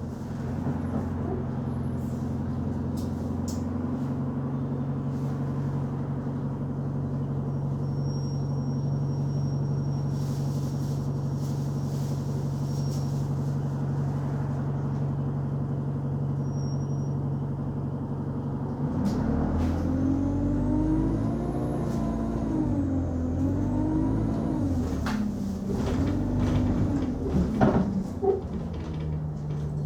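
Diesel engine of an Enviro 200 Dart single-decker bus heard from inside, idling steadily, then revving as the bus pulls away about two-thirds of the way in, its pitch rising and falling through the gears. A few sharp knocks come near the end.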